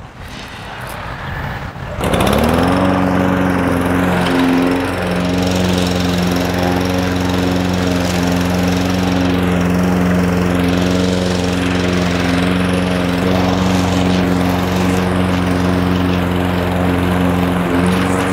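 Gas walk-behind lawn mower's engine comes in about two seconds in and then runs steadily at full speed while cutting grass, with the bag removed so clippings discharge out the back.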